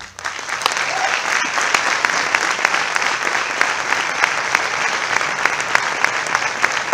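Audience applauding, building over the first half-second and then holding steady.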